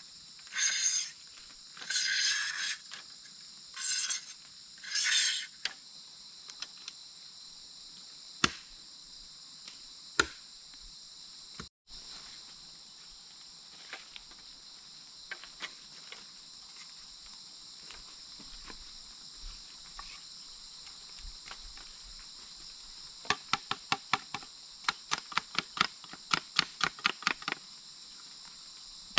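A machete rasping along bamboo strips in five strokes at the start, later a quick run of sharp knocks, several a second, as bamboo pieces are worked. Insects keep up a steady high-pitched drone throughout.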